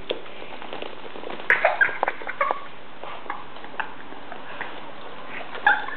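Shih tzu puppy playing with a slipper: short snuffling and grunting noises with small clicks and scuffs, in a cluster about a second and a half in and again near the end.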